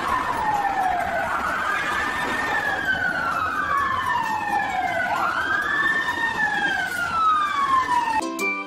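Fire engine sirens wailing in slow rising-and-falling sweeps, two of them slightly out of step, over the hiss of street traffic. They cut off near the end as music comes in.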